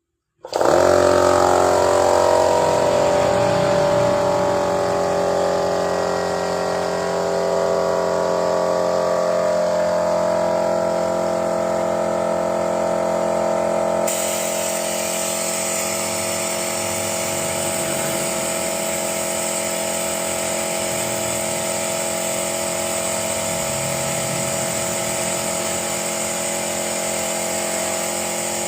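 A motor running steadily at a constant speed, with a brighter hiss joining about halfway through.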